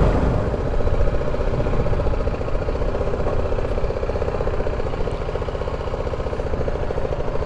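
BMW G310 GS single-cylinder motorcycle engine running at low revs with a steady, rapid pulse, heard from the rider's seat as the bike rolls slowly and idles.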